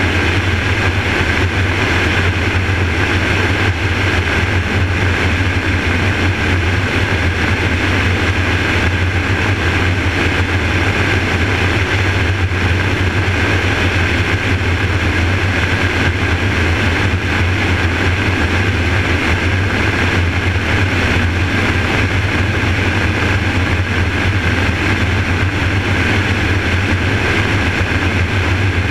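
Helicopter in flight, heard from a camera fixed to its outside: a loud, steady drone of rotor and engine with a low hum underneath, unchanging throughout.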